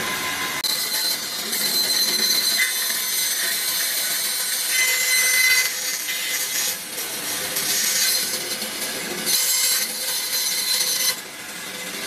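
Vertical band saw cutting through an air-conditioner radiator of copper tubes and aluminium fins: a loud, rasping metal-cutting whine that swells and eases as the radiator is fed into the blade. It drops to a quieter run near the end as the cut finishes.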